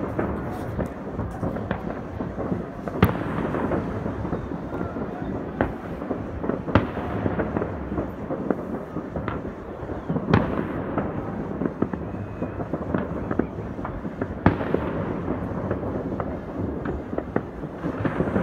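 Many fireworks going off across a city at once: a continuous rumble of distant bangs and crackling, with sharper single bangs standing out every few seconds.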